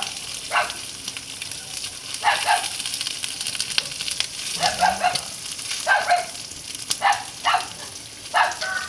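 Oil sizzling steadily in a wok as salted small fish fry, turned with chopsticks. Over it come several short, sharp animal calls, one every second or so, which are the loudest sounds.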